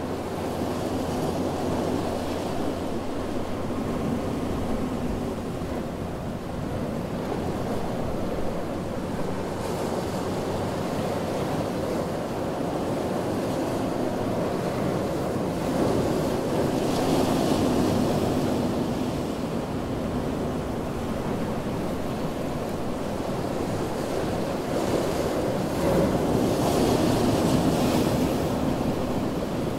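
Ocean surf washing onto a beach, a steady rush of water that swells into louder breaking waves about halfway through and again near the end.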